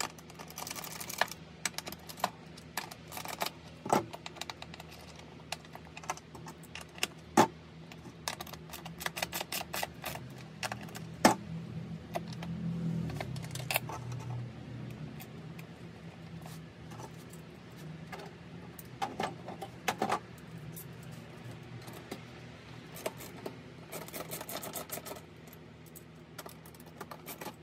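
Small metal clinks, clicks and rattles of a wrench and steel seat hardware as a bracket is unbolted from a motorcycle seat pan, with a few louder knocks scattered through.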